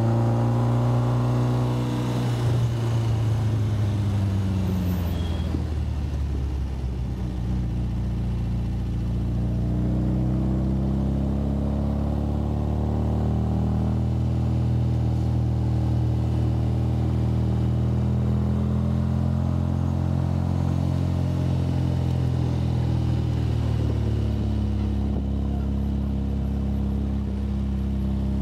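MGA sports car's four-cylinder engine running under load on a steep climb, heard from the open cockpit. Its note drops a couple of seconds in, climbs slowly through the middle, and drops again a few seconds before the end.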